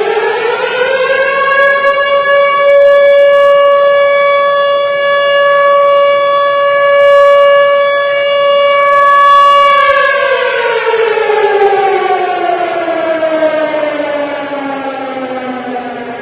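Loud civil-defense siren sounding a nuclear attack alarm. Its wail finishes climbing in the first second or so, holds one steady high note for about ten seconds, then slowly winds down in pitch.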